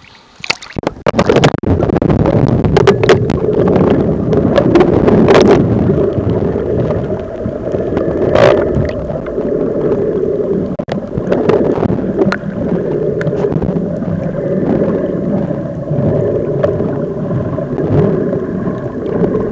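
A camera going under the sea surface about a second in, then muffled underwater noise from the water moving around the camera, with gurgling and scattered sharp clicks and knocks.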